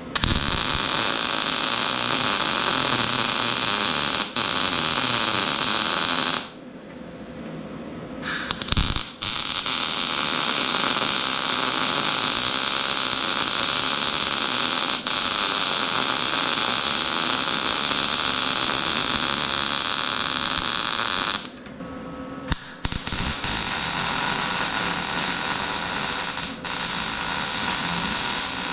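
Arc welding with a Vulcan OmniPro 220 welder: a steady crackling hiss in three long runs, broken twice for a second or two between beads.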